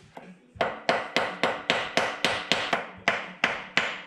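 Quick, even hammer taps, about four a second, starting about half a second in: a small hammer tapping a card template against the engine's intake port face to cut the port outlines into it for a flange pattern.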